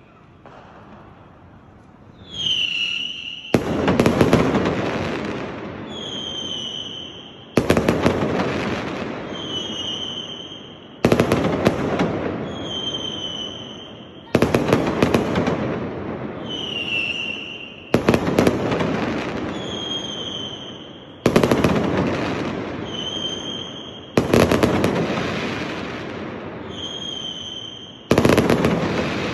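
Aerial firework shells fired one after another, each with a short whistle as it climbs, then a loud bang and a crackling tail that dies away. Eight bursts come at a steady pace, about one every three and a half seconds.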